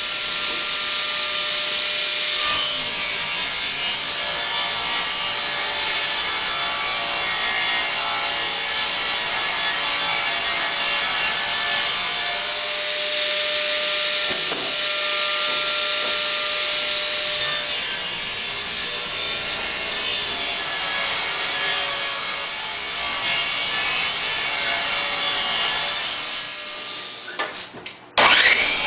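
Table saw running steadily while ripping 2x pine boards lengthwise into 3-inch strips. Near the end the sound breaks off and a miter saw's whine begins abruptly, falling in pitch.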